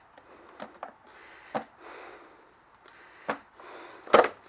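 A handful of sharp clicks and knocks from handling objects, spaced irregularly with quiet between, the loudest near the end.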